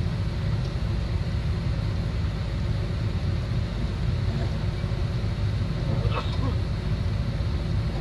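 Excavator's diesel engine running steadily, a low even drone, with a short sharper sound about six seconds in.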